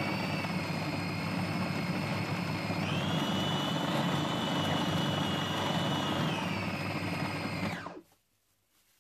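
A 450 W Siemens food processor running at full power, grinding partly frozen pork into paste. Its motor whine steps up in pitch about three seconds in and back down near six seconds. It is switched off about eight seconds in and stops quickly.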